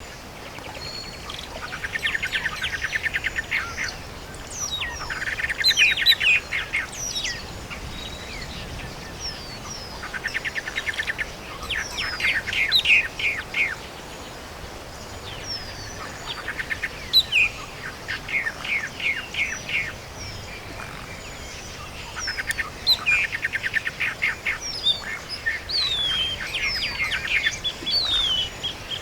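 Songbird singing a repeated phrase about every five to six seconds: a fast trill followed by a few quick sweeping notes. Thinner, higher chirps from other birds come in between the phrases.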